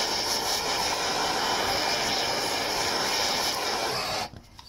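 Handheld gas torch burning with a steady hiss as it is played over a horse's hoof to dry it, shutting off suddenly about four seconds in.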